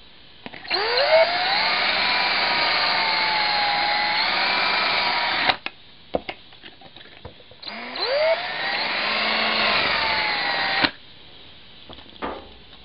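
Electric drill boring out a hole in a plastic panel, run twice. Each run spins up with a quick rising whine, holds steady, then cuts off suddenly; the first lasts about five seconds and the second about three.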